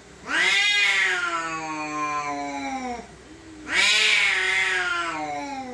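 A domestic cat yowling at another cat, two long drawn-out calls each about two and a half seconds, rising at the start and slowly sinking in pitch: an angry, threatening yowl.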